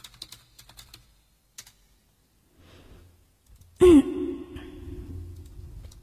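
Light keyboard clicking, then about four seconds in a sudden loud sigh close to the microphone, falling in pitch and held as a voiced tone for about two seconds.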